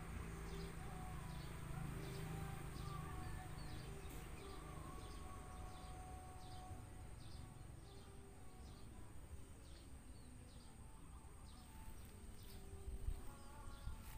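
Outdoor ambience with a small animal chirping over and over, about two short high chirps a second, fading after about nine seconds, over a steady high hum and a low rumble. A few sharp clicks near the end.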